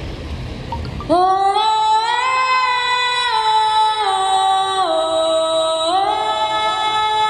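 A woman singing long, held notes into a stage microphone, her voice coming in about a second in and gliding and stepping between pitches.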